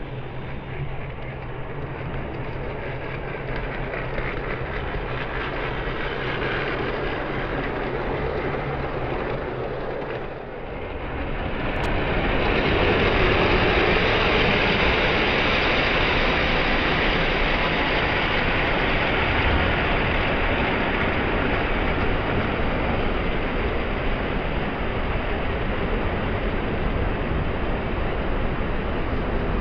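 Model train running along a layout's track with a steady rolling rumble and clatter, mixed with the hum of a busy exhibition hall. About eleven seconds in, the sound drops briefly and then returns louder and brighter.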